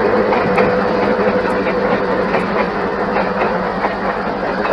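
Commuter train passenger coaches rolling past close by: a steady rumble of wheels on rail, with repeated clacks as the wheels cross rail joints.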